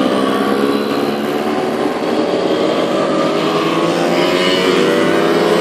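Several small two-stroke moped engines passing one after another, running steadily and overlapping, with one rising in pitch as it speeds up near the end.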